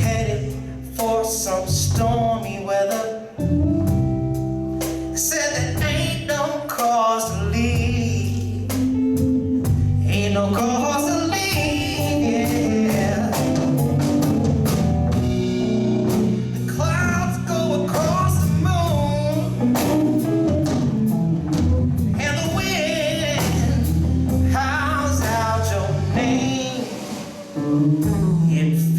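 Live blues band playing a slow song, a man singing over guitar and the band.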